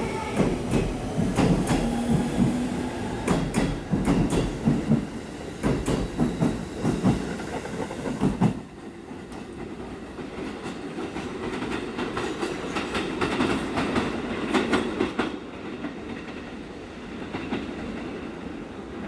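Train running past, its wheels clattering over the rail joints over a low rumble; about eight and a half seconds in the loud passing stops abruptly, leaving a fainter rumble with scattered clicks.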